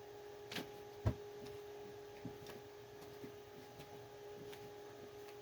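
Steady low electrical hum with a few faint clicks and a dull knock about a second in.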